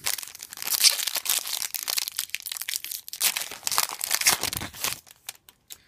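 Foil wrapper of a Topps trading-card pack being torn open and crinkled in the hands, a dense crackle for about five seconds that thins to a few light ticks near the end.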